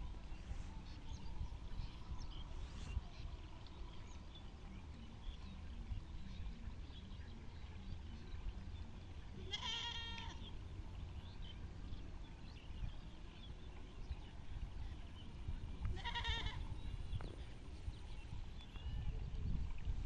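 An animal bleating twice, about six seconds apart, each call short and wavering, over a steady low rumble.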